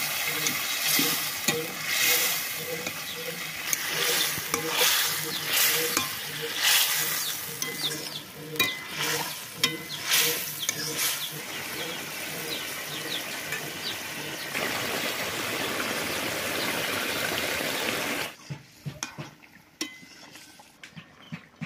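Chicken curry sizzling in a metal wok while a metal spatula stirs it, with frequent scrapes and knocks of the spatula against the pan. About eighteen seconds in the sound drops much quieter, leaving a few faint clicks.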